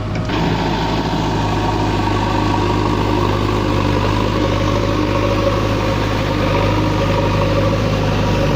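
JCB 3DX backhoe loader's diesel engine running steadily at a constant pitch.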